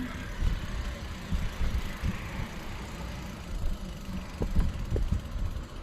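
Low, steady rumble of a car running, heard from inside the cabin, with a few faint knocks about four and a half to five seconds in.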